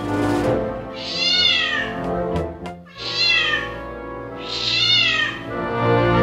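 A cat meowing three times, evenly spaced, each call rising and then falling in pitch, over background music.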